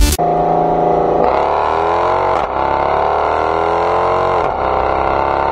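Car engine accelerating hard, its pitch climbing steadily and dropping sharply at two gear upshifts, about two and a half and four and a half seconds in.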